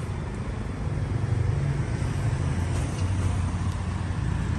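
Steady low outdoor rumble with a faint even hiss above it, unchanging throughout.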